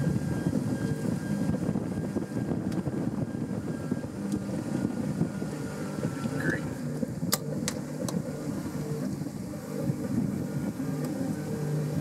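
Steady low hum of an engine running. Two sharp clicks about seven seconds in.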